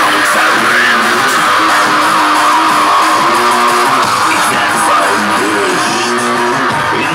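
Drum and bass from a DJ set, played loud and without pause over a club sound system, with a sustained distorted lead sound.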